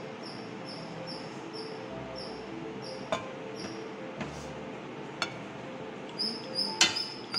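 Rhythmic high-pitched insect chirping, about three short chirps a second, with a few sharp clicks, the loudest near the end.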